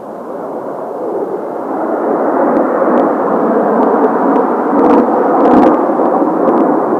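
Kawasaki T-4 jet trainers flying past, their turbofan engines making a steady rushing jet noise that grows louder as they approach.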